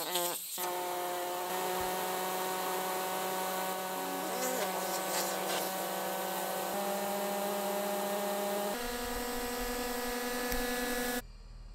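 Air hissing and whistling steadily out of a van tyre through a screw-on tyre deflator as the tyre is aired down. The whistle shifts pitch a couple of times and cuts off suddenly near the end.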